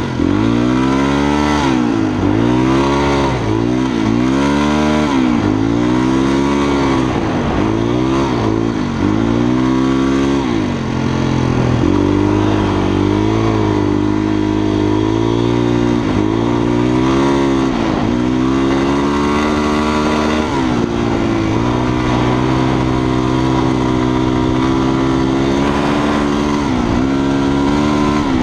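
Honda XLR250 single-cylinder four-stroke engine heard from the bike while riding, rising and falling in pitch about once a second for the first ten seconds or so as the throttle is worked. It then runs at a steadier pitch with a few brief surges.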